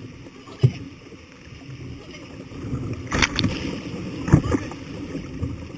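River water rushing and splashing against a canoe's bow, with several sharp splashes: one about half a second in, two just after three seconds, and the loudest just after four seconds.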